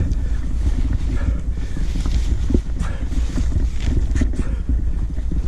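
Cloth cat bag rustling and rubbing right against the microphone as a cat is bundled into it: a steady low rumble of handling noise with scattered scratchy rustles.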